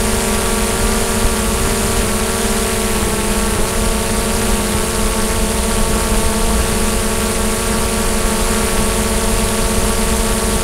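DJI Mavic drone's propellers and motors whirring steadily in flight, heard close up as a loud, even hum of several tones over hiss, wavering slightly in pitch a few seconds in.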